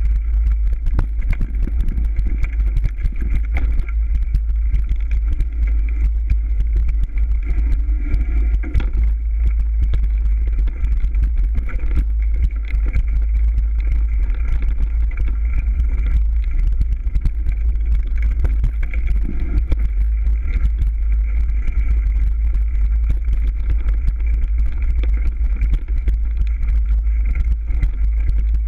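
Mountain bike ridden over a leaf-covered forest singletrack, heard from a camera on the moving bike: a constant heavy low rumble with a dense clatter of small knocks and rattles from the trail.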